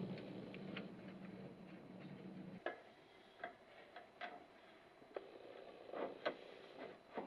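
Faint, scattered light clicks and taps from hand work on the house's sheet-metal trim, about eight in all at uneven spacing. A low steady hum runs under the first couple of seconds and then stops.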